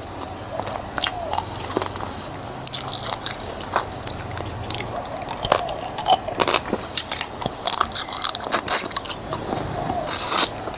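Close-miked biting and chewing of spicy pickled shellfish: repeated irregular crunches of shell and wet chewing.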